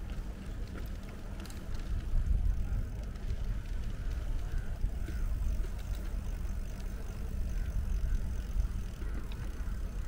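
Steady low rumble of wind buffeting the microphone of a camera riding on a moving bicycle, mixed with the bicycle's tyres rolling on a paved path and a few faint ticks.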